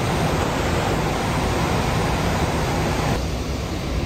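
Swollen, silt-laden mountain river in spate, rushing through rapids with a loud, steady roar. The hiss of the water drops away somewhat about three seconds in.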